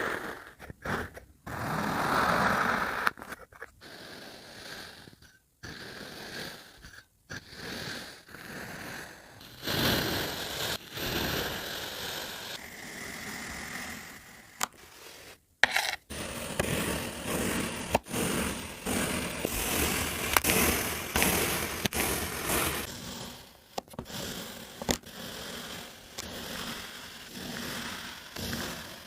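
Kinetic sand being cut and crumbled: crunchy scraping and crumbling in stretches of a few seconds, broken by several sudden silent gaps, with a few sharp clicks.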